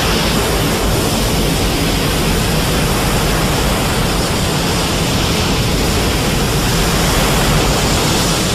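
Steady, loud rushing noise with a low rumble beneath it: a synthetic monster sound effect.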